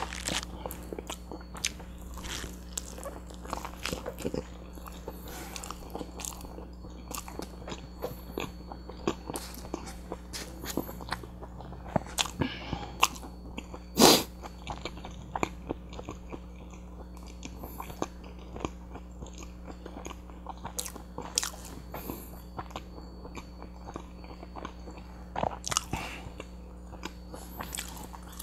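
Close-miked chewing and biting of a butter chicken burrito in a flour tortilla: many short wet clicks and smacks throughout, over a faint steady hum. About halfway through there is one much louder sharp sound.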